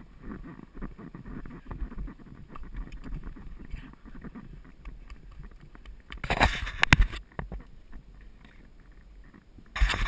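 A horse's hoofbeats and tack as it moves along a grass and dirt track, a low uneven patter. A louder rushing stretch with sharp knocks comes about six seconds in, and another starts near the end.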